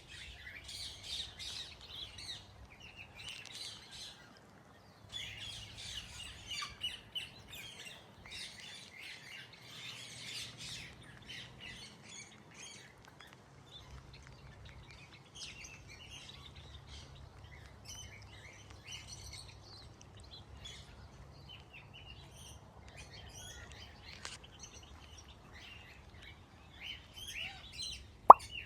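Aviary birds chirping and twittering, many calls overlapping, with a brief lull a few seconds in. A single sharp click near the end is the loudest sound.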